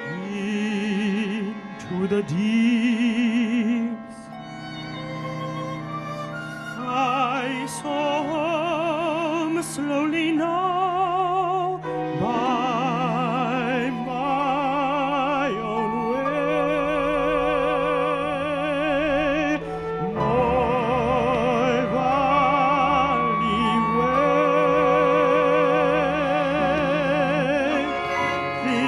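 Contemporary classical chamber ensemble playing, with a male singer singing in an operatic style over it; several long notes with vibrato sound together.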